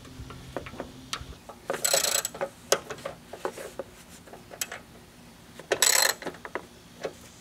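Ratchet wrench tightening a nut on a lawn mower: two quick runs of ratcheting clicks about four seconds apart, with scattered single clicks between.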